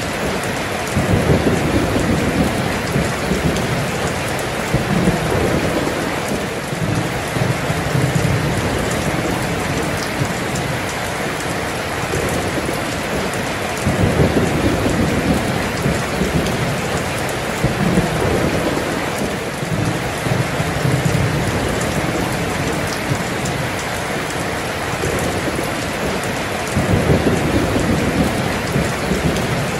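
Heavy rain falling steadily, with rolling thunder rumbling in three long swells: about a second in, about halfway through, and near the end.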